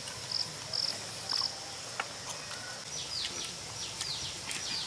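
Insects chirping over a steady background hiss: a few short high pulses in the first second and a half, then a run of quick, falling high chirps from about three seconds in.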